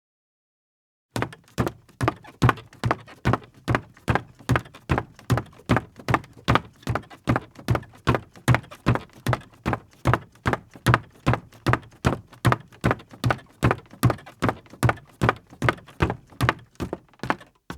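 Women's high-heeled footsteps walking steadily across a creaky floor, about two to three even steps a second, each a heel click with a low thud. The steps start about a second in.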